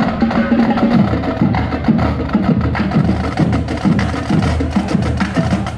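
Marching drumline playing a cadence: rapid snare and tenor drum strokes over regular low bass-drum beats.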